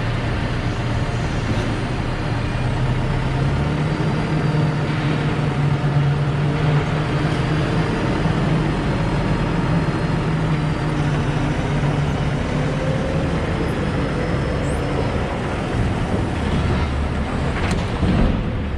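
Forklift engine running steadily under load, its hum rising in pitch about three and a half seconds in and settling back down in the second half. A single sharp knock near the end.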